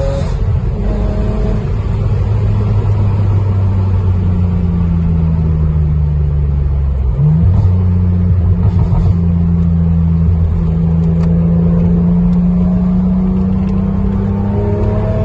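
BMW Z4 3.0i's straight-six engine running at low revs under light throttle. Its note sinks slowly, jumps up sharply once about seven seconds in, then holds steady before revs begin to climb again near the end.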